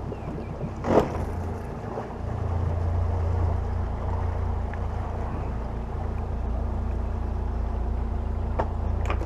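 Outboard motor running at low speed, backing the boat away, with a steady low hum that grows a little louder about two seconds in. A single sharp knock about a second in.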